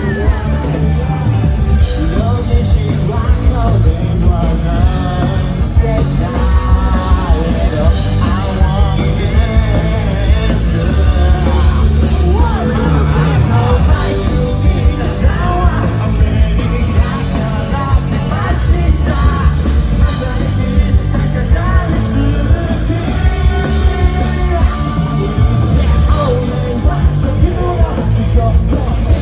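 Rock band playing live, with drums, bass and guitars under a singer's vocals.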